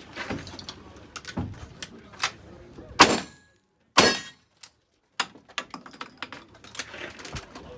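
Gunshots and the clicks and knocks of a cowboy action shooting stage run, right after the shot timer's start beep: a string of sharp reports and smaller clicks, the two loudest about three and four seconds in.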